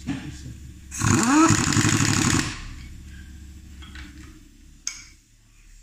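Pneumatic impact wrench spinning up and hammering for about a second and a half on a nut of a truck's air brake booster, over a steady low hum; a single sharp click follows near the end.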